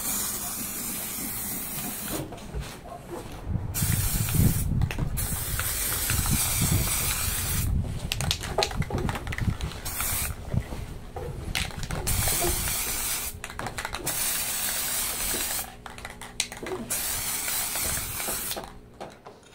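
Aerosol spray-paint can hissing in a string of bursts of one to three seconds, broken by short pauses, as paint is sprayed in passes.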